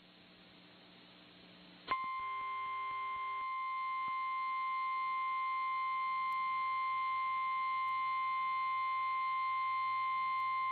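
Emergency Alert System attention signal: a single steady weather-radio alert tone, apparently the 1050 Hz NOAA Weather Radio warning tone, starting about two seconds in after faint hiss and hum and held for about nine seconds before cutting off. It signals that a warning broadcast, here a severe thunderstorm warning, is about to follow.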